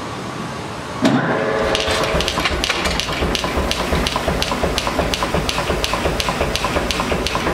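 Mechanical power hammer forging a red-hot steel bar, its ram striking in rapid, even blows at about three a second with a low thud under each. The blows start about a second in, after a steady rumble of shop noise.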